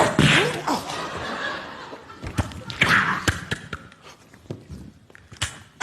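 People laughing, with scattered sharp clicks and knocks and a short falling hiss about three seconds in.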